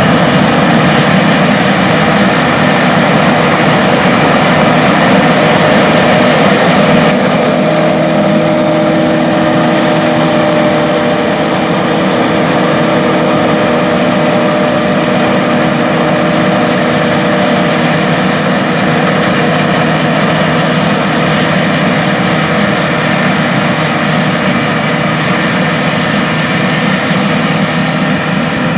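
John Deere S780 combines harvesting wheat: a steady drone of engine and threshing machinery, with a slight change in tone about seven seconds in.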